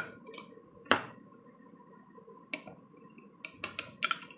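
Metal knocks and clinks of a 14-litre Irani-style pressure cooker's lid being set on the pot and its bridge clamp fitted. There is one sharp knock about a second in, a lighter one later, and a quick cluster of clicks near the end.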